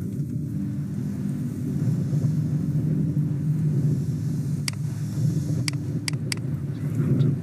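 A steady low rumble, with a handful of sharp computer-mouse clicks in the second half.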